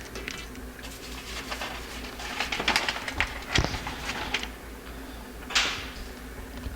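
Light handling noises on a workbench: scattered small clicks and taps, one sharper click about halfway through, and a short rustle a little after five seconds, as carburetor parts, the float gauge and the paper instructions are handled.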